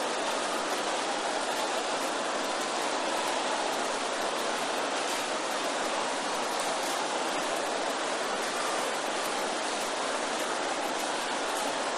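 Large congregation praying aloud all at once, many voices merged into a steady roar with no single voice standing out.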